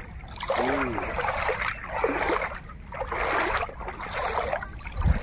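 Feet wading through shallow river water, a sloshing splash about once a second.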